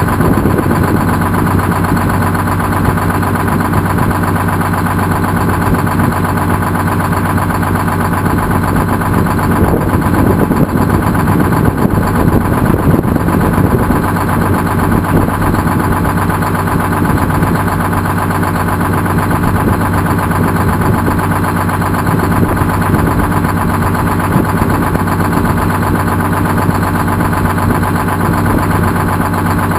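1959 GMC truck's two-stroke Detroit Diesel engine idling steadily, heard from directly beneath the truck.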